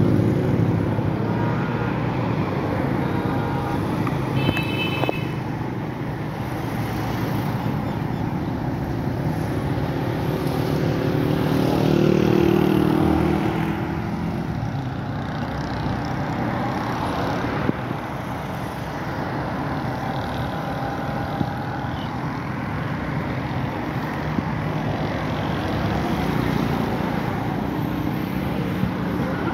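Road traffic: a steady wash of cars passing on the road, swelling as a louder vehicle goes by about twelve seconds in, with a brief high-pitched tone about four seconds in.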